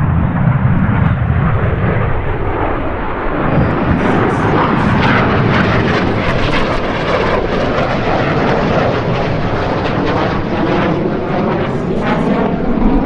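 BAE Hawk T1 jets with Adour turbofan engines passing overhead, a loud, steady jet noise that grows brighter and hissier about four seconds in as they come closer, with a wavering, phasing quality near the end.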